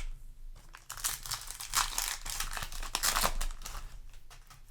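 Crinkling of a foil trading-card booster-pack wrapper being handled and torn, a dense crackle from about half a second in to about three and a half seconds.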